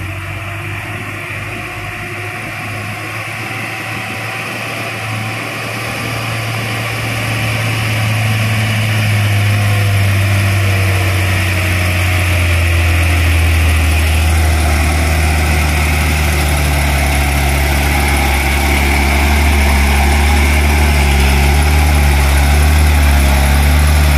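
Hino 500 dump truck's diesel engine running steadily under load as the loaded truck climbs a dirt hill, growing louder as it draws near.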